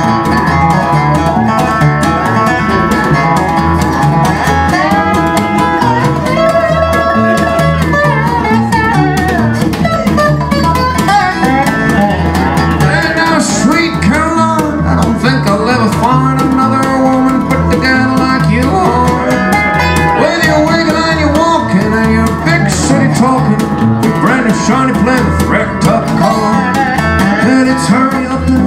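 Instrumental break in a country song: a resonator guitar played lap-style with a slide carries the lead in gliding, bending notes over plucked upright double bass.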